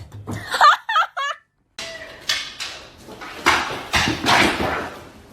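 Three short, quick animal calls that bend in pitch. After a brief break, a run of noisy bursts follows.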